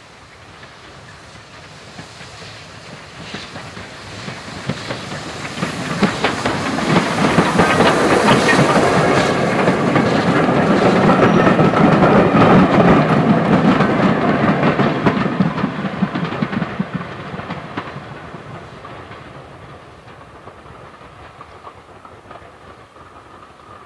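LBSCR A1X Terrier 0-6-0 steam tank engine hauling a train of carriages passes by: the sound grows over several seconds, is loudest for several seconds as the engine and carriages go past, with rapid knocks and clatter from the wheels, then fades as the train draws away.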